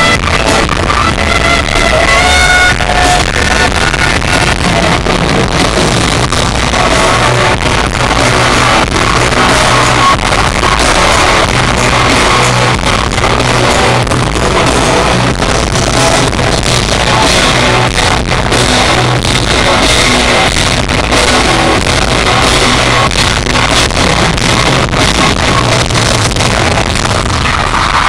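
Loud live pop-rock music from a concert sound system: amplified band with a steady beat and singing.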